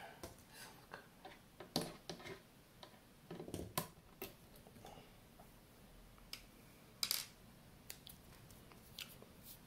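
Scattered light clicks and taps of metal as the display unit's metal frame and board stack are handled with a screwdriver, a few sharper clicks among softer ones.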